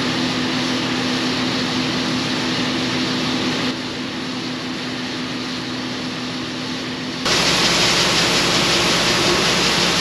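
Harvest machinery engines (tractor and combine) running at a steady drone with a constant hum. The sound changes abruptly twice: it drops a little in level a third of the way in, then turns louder and hissier about two thirds of the way in.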